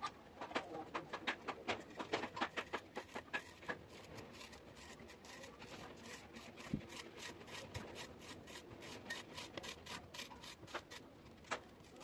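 A rapid series of short scraping or rasping strokes, several a second. They are louder and more spaced out for the first few seconds, then come quicker and softer.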